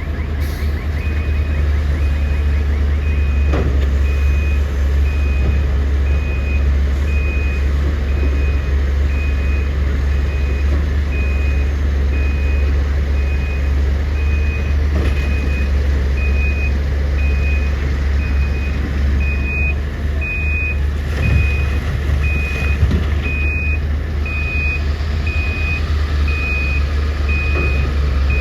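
Heavy diesel mining machinery running with a steady low rumble. Over it, a back-up alarm beeps at an even pace, starting about a second in.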